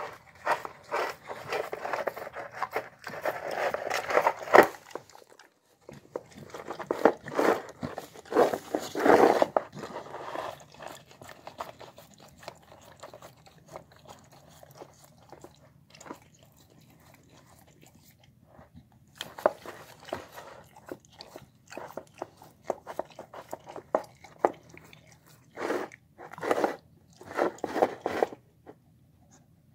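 A mixed-breed dog eating a wet meal of egg and brown rice from the bottom of a nearly empty bowl. It makes quick wet smacking, licking and chewing sounds in bouts, with a quieter stretch in the middle.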